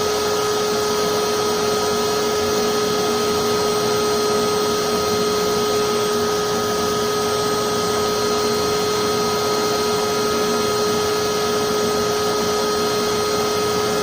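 Electric blower of a forced-air propane forge burner running steadily, a constant motor whine over the rush of air it drives into the lit burner.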